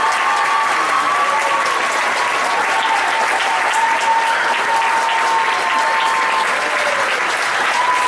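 Audience applauding steadily: a dense wash of clapping at the close of a concert piece.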